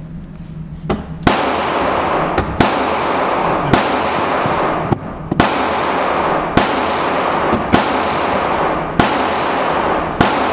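A string of handgun shots at a target range: about ten sharp reports, irregularly spaced roughly a second apart, with a steady noisy hum between them.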